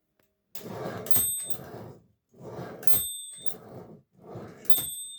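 Erika S portable typewriter's end-of-line bell dinging three times, about every two seconds, each ding inside a burst of mechanical clatter from the carriage moving. The bell marks the end of the line, where the carriage lock engages; the last ding rings on.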